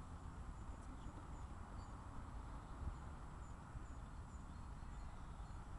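Quiet outdoor ambience: a steady low wind rumble on the microphone under a faint even hiss, with a few faint high chirps now and then.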